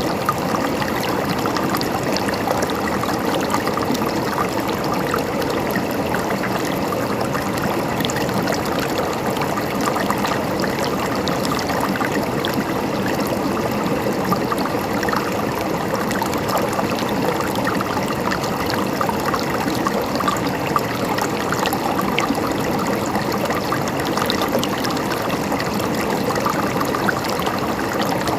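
River water flowing and gurgling over stones, a steady, unbroken rush.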